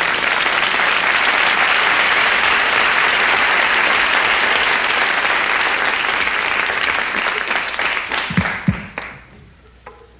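Theatre audience applauding, a dense steady clapping that fades out about nine seconds in, with a couple of low thumps as it dies away.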